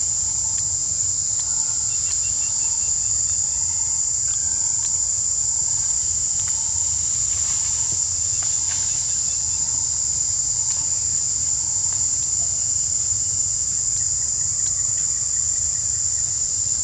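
A steady, high-pitched insect chorus sings without a break. Beneath it, a faint short note repeats about twice a second and stops about twelve seconds in.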